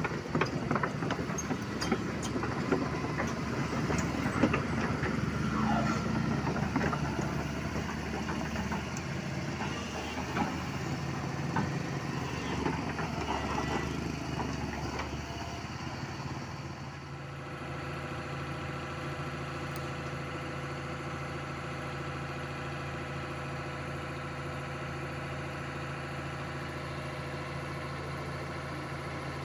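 Doosan DX225LCA excavator's diesel engine running, uneven at first with knocks and clatter, then settling a little over halfway through into a steady idle.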